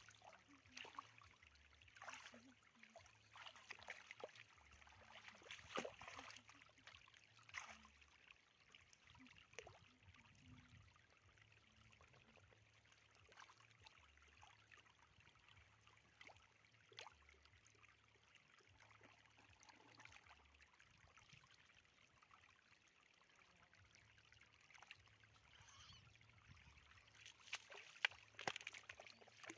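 Faint, irregular splashing and trickling of shallow water, with louder splashes about six seconds in and again near the end.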